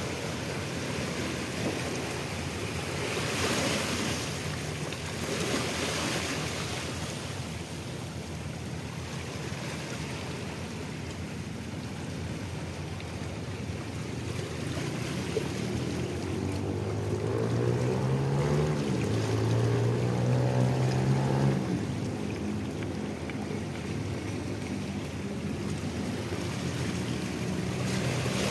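Small waves washing against a rocky shoreline, with wind. About sixteen seconds in, a motor's hum rises in pitch, holds steady for a few seconds as the loudest sound, then drops away.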